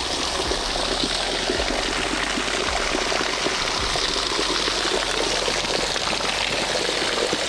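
Waterfall water pouring and splashing close by in a steady rush.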